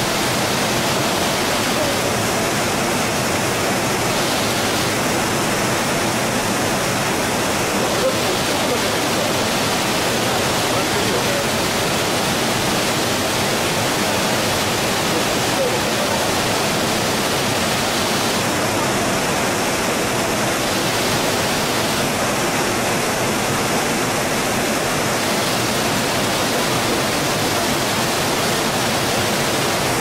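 Ryuzu Falls, a cascade waterfall, sending white water down over rocks in a loud, steady rush.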